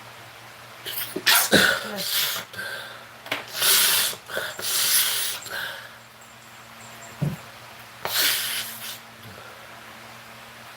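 A man sneezing several times in a fit, in short sharp bursts with pauses between, his nose irritated by paprika.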